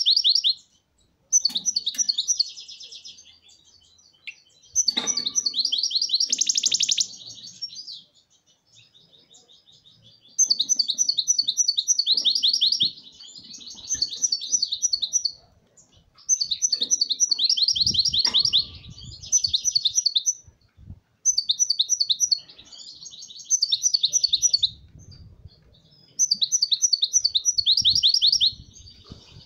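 Caged European goldfinch singing: bouts of rapid, high twittering notes a couple of seconds long, broken by short pauses throughout.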